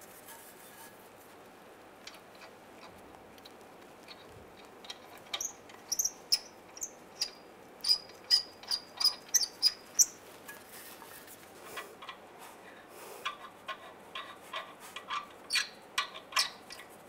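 Small metallic clicks and taps of exhaust pipe flanges and nuts being handled and threaded on by hand. In the middle come a run of short, high squeaks, about two a second, and near the end a quicker patter of clicks.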